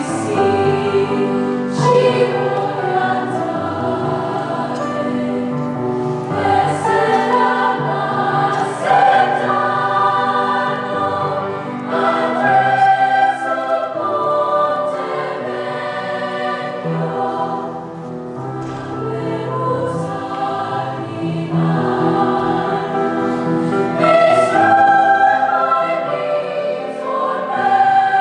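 A choir singing, accompanied on a grand piano.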